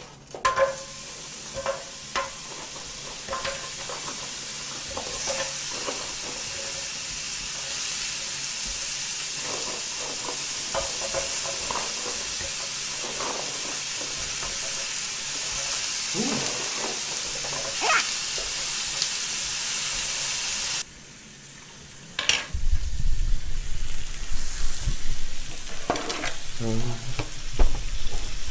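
Thin-sliced beef brisket sizzling as it is laid onto a hot electric griddle with tongs, a steady hiss with scattered clicks and taps. About 21 seconds in the sizzle drops away suddenly. After that come low thumps and rumbling from the microphone being handled.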